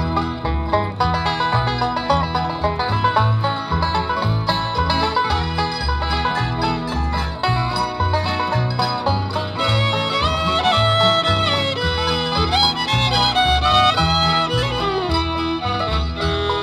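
Instrumental break of a country gospel song played by a bluegrass-style string band, with no singing: a steady, regular bass beat underneath, and a melody line with sliding notes coming in about ten seconds in.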